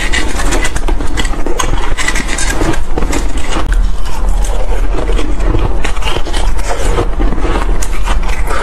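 Soft, powdery ice being chewed close to a clip-on microphone: loud, dense crunching, along with fingers scraping loose ice around a stainless steel bowl.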